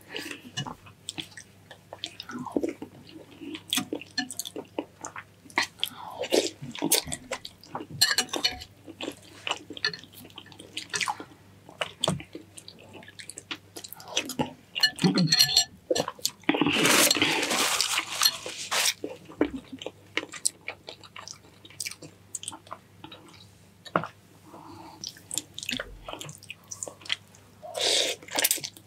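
A person eating close to the microphone: wet chewing and mouth clicks, with one louder noisy stretch of about two seconds about 17 seconds in.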